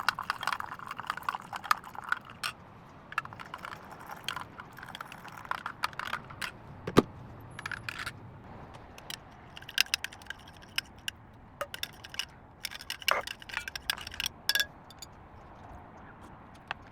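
Light clinks, taps and rattles of small hard household items being handled, irregular and scattered, with one louder knock about seven seconds in.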